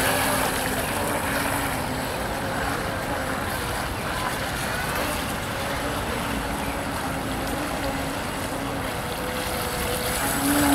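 Electric outrunner motor of a small radio-controlled model hydrofoil boat running with a faint wavering whine, over a steady rush of water spray and wind. It is louder at the start and again near the end, when the boat is close.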